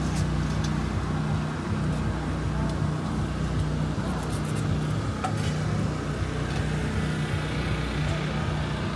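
Steady low engine drone that runs evenly throughout, with indistinct voices of people around it.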